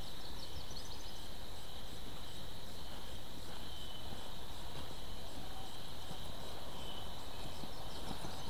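Outdoor ambience: a steady high-pitched insect chorus, with a few short high whistles about four and seven seconds in.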